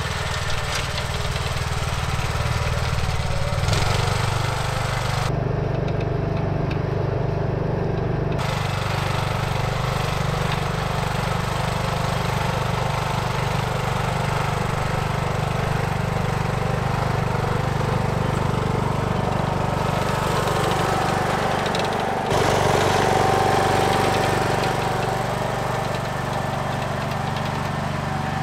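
Riding lawn tractor's engine running steadily as it drives through snow, with the sound shifting abruptly a few times.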